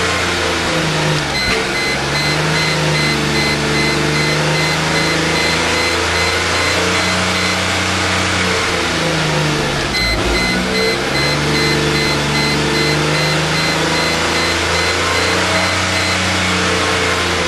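1998 Mercedes E320's engine held at high revs under throttle, near 4,000 rpm, its pitch sagging twice and climbing back. The engine is misfiring on all cylinders, which the owner suspects is from plugged catalytic converters.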